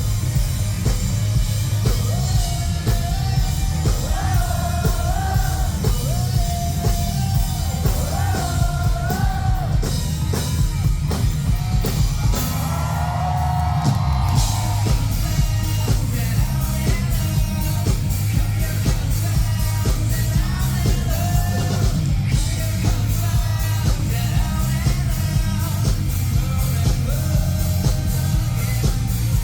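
Live rock band playing, with a lead vocal singing over a driving drum kit, bass and guitars. About twelve seconds in the drums thin out under one long held vocal note, then the full beat returns.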